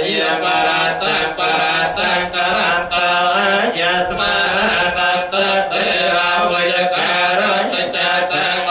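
Buddhist monks chanting Pali blessing verses, a continuous recitation on a near-steady low pitch with short breaks between syllables.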